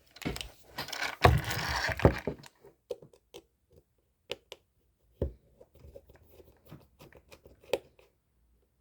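Rustling and scraping for about two seconds, then scattered light clicks and taps: small objects being handled.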